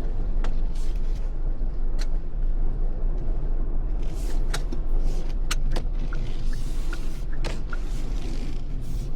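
Steady low rumble of a car driving, heard from inside the cabin, with scattered sharp ticks at irregular intervals.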